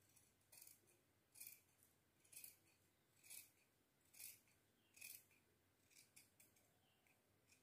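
Tailor's scissors snipping through folded blouse lining fabric along a chalked neckline: a run of about eight faint snips, roughly one a second.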